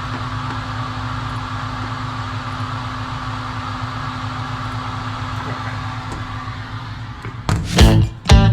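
Steady mechanical hum of a running motor or fan, holding an even pitch. Near the end, guitar music cuts in loudly over it.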